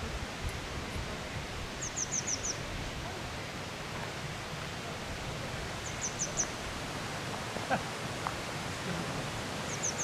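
Steady rush of wind in the forest trees, with a small songbird three times singing a short high phrase of four or five quick falling notes, about 2 s, 6 s and 10 s in.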